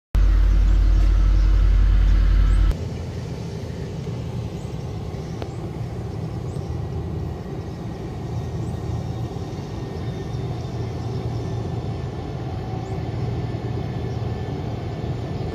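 A heavy diesel engine, that of the motor grader, running loud and deep. About three seconds in it cuts abruptly to a quieter, steadier engine sound that carries on.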